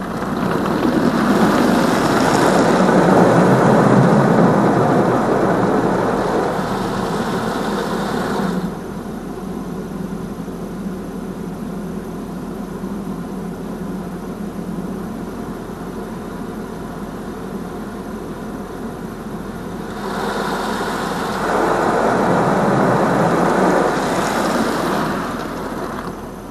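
High-pressure water jets of a touchless car wash spraying over the car, heard from inside the cabin. They are loud for about eight seconds, drop to a quieter steady spray for about eleven, then grow loud again for about five seconds before fading near the end.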